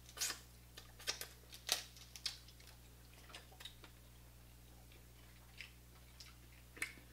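Faint wet mouth and finger-licking smacks from eating seafood boil: a handful of sharp smacks in the first two seconds or so, then only a few soft clicks, over a low steady hum.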